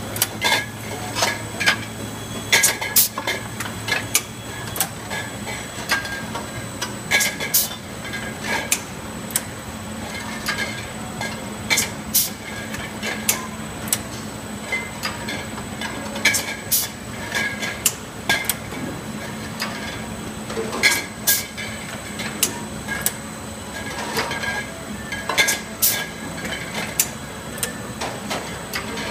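Resina automatic capping machine running with glass gallon jugs: bunches of sharp clicks and clanks from the capping head and conveyor every two to three seconds, over a steady motor hum.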